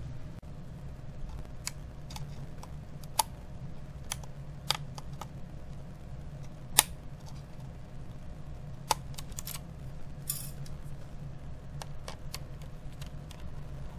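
Sharp plastic and metal clicks and taps from handling small parts inside an opened laptop: the hard drive in its plastic caddy, then tweezers working the Wi-Fi card's antenna connectors. About a dozen scattered clicks, the loudest about seven seconds in, and a short scrape near ten seconds, over a steady low hum.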